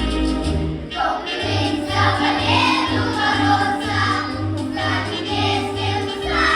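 Children's choir singing in unison over an orchestral accompaniment with a steady, pulsing bass beat; the voices come in about a second in.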